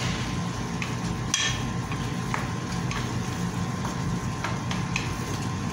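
Wooden spatula stirring sautéed bottle gourd (opo) in a metal pot, with scattered light knocks and scrapes of the spatula against the pot and a sharper knock about a second and a half in, over a steady low hum.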